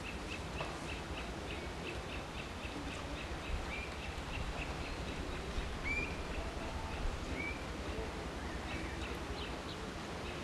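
Outdoor countryside ambience with birds: one bird repeats a short high chirp several times a second through the first half, and a few slurred single calls follow later, over a steady low background noise.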